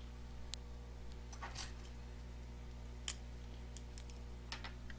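Scattered light clicks and taps of tweezers and small phone parts being handled on a workbench, some in quick little clusters, over a steady low electrical hum.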